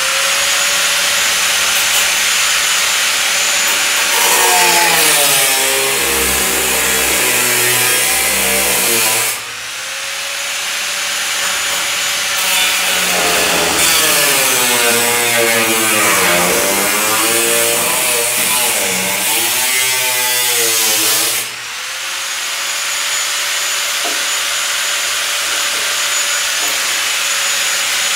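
Grinder with a cutoff wheel cutting through the rusted sheet-metal cowl lip of a 1968 Chevy C-10, its steady whine sagging and wavering in pitch as the wheel bites into the metal. It cuts in two long passes, dropping off briefly about 9 and 21 seconds in and spinning back up each time.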